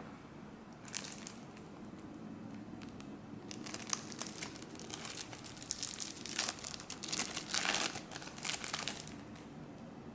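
Plastic trading-card packaging crinkling as it is handled and opened. There are a few brief crackles about a second in, then dense crinkling from about three and a half seconds until near the end.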